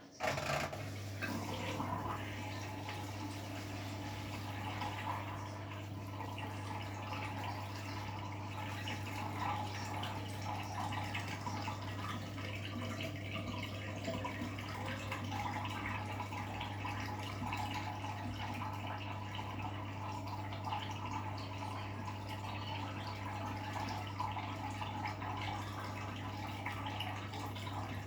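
Hoover washing machine filling with water on its wool and silk programme: water starts rushing into the drum suddenly, running evenly over a steady low hum.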